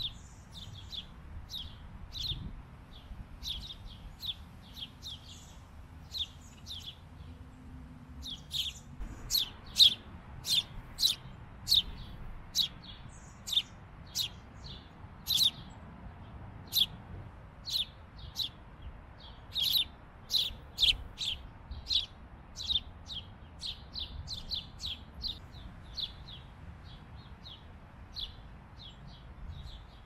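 A small bird chirping over and over, short sharp chirps at about two a second, getting louder about a third of the way in.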